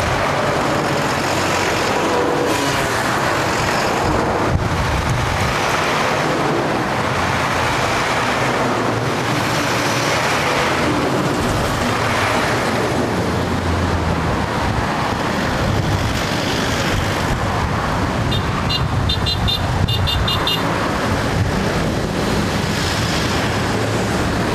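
Loud road noise from a convoy of cement mixer trucks passing close by on a highway, engines and tyres swelling and fading as truck after truck goes by. About three quarters of the way through, a rapid run of short high beeps lasts about two seconds.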